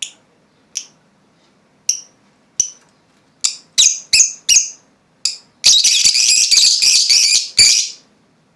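Lovebirds calling: a run of short, sharp, high-pitched chirps that come faster and faster, then nearly two seconds of dense, shrill chattering.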